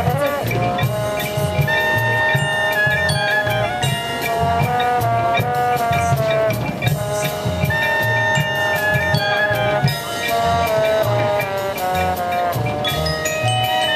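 Marching band playing its field show: brass holding and moving through chords over a steady drum beat.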